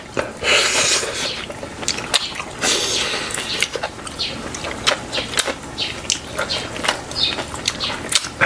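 Tableware clicking and clinking against bowls during a meal, with two short bursts of soft liquid noise from the soup near the start.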